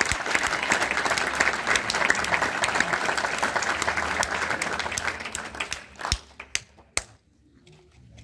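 Audience applauding, the clapping dying away about six seconds in to a few last scattered claps.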